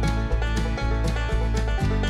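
Background music with a steady beat, plucked strings in a country or bluegrass style.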